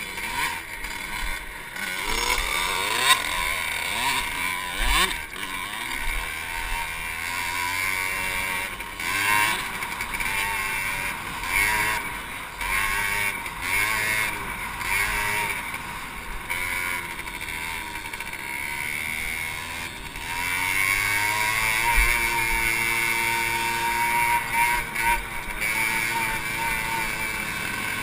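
Honda CRF250X single-cylinder four-stroke dirt bike engine, heard from on the bike, revving up and down again and again as it accelerates and shifts along a dirt track.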